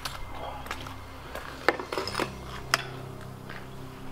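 A handful of sharp clinks and knocks from loose debris, broken glass and rubble, shifting and knocking underfoot on a littered floor. The loudest come near the middle.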